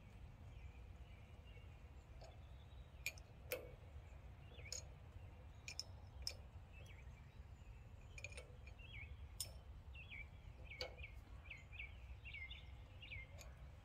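Faint, scattered metallic clicks of a small open-end wrench being turned and reset on a grease fitting as it is threaded into a tractor PTO overrun clutch, over near silence.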